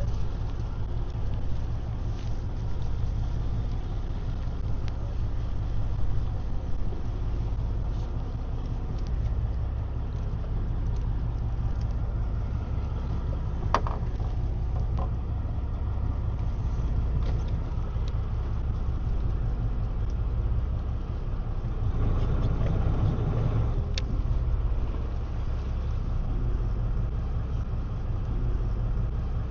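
Fishing boat's engine running steadily, a constant low drone, with a few isolated clicks and knocks.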